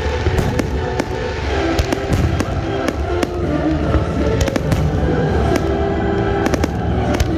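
Fireworks going off in quick succession, many sharp bangs and crackles, over music playing throughout.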